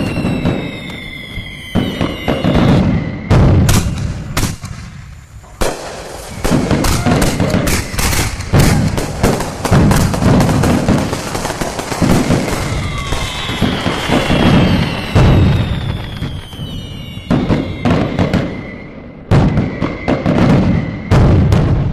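Fireworks going off: rapid bangs and crackling, with high whistles falling in pitch near the start and again midway, and a short lull about four seconds in.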